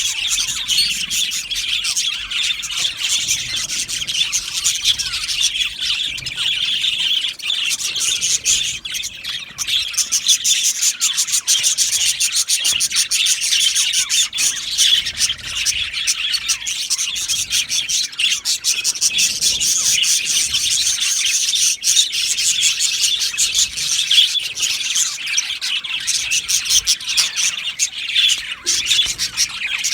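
A flock of budgerigars chattering continuously: many overlapping warbles, chirps and squawks in a dense, unbroken chorus.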